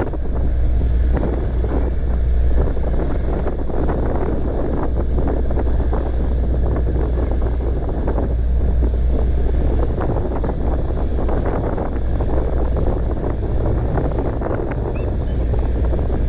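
Strong wind buffeting the microphone aboard a tug running through rough water, over a steady low rumble of the boat and sea.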